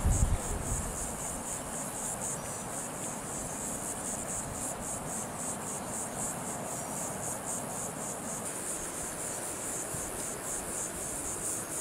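Chorus of insects calling, a high trill that pulses evenly a few times a second, with a brief low rumble right at the start.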